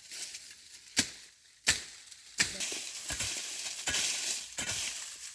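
Several sharp knocks, one at a time, then a denser stretch of rustling and scraping with more clicks in it.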